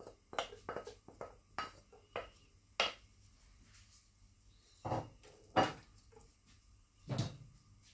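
Wooden spoon tapping and scraping chopped onions off a ceramic plate into a cooking pot: a quick string of light clicks, then a few louder knocks of the spoon against the pot as the onions are stirred in.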